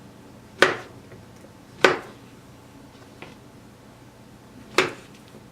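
A kitchen knife slicing through a banana and knocking on the cutting board, three sharp strikes a second or more apart with a fainter one between.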